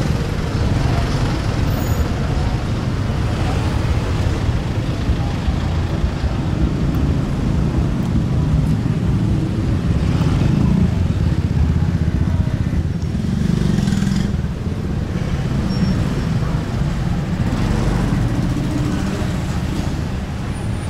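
Close street traffic: motor scooters and cars passing with their engines running in a steady low rumble, swelling as vehicles go by about ten and fourteen seconds in.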